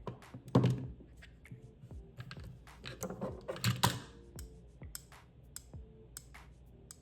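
Small screwdrivers and bits being handled, making scattered clicks and light knocks, with a louder knock about half a second in and a cluster of louder knocks around three to four seconds in.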